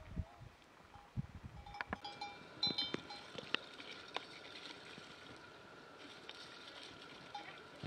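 Faint clinks of livestock bells over low soft thumps, changing after about two seconds to a soft steady rustle of soaked rice being tipped from a plastic colander into a metal cooking pot, with a few light clicks.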